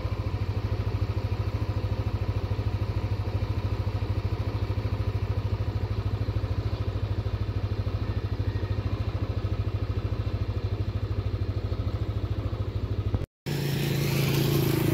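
A motorcycle engine running steadily with a fast, even pulsing. About 13 s in the sound cuts out briefly and a different, louder engine sound takes over.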